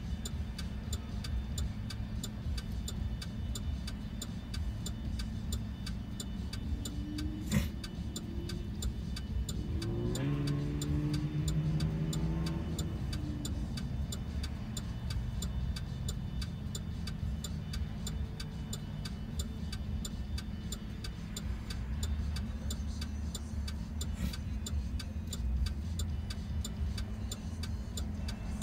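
Car's turn signal ticking evenly inside the cabin while the car idles at a red light, over the engine's low rumble. Another vehicle's engine passes about ten seconds in, and there is a single knock a little before that.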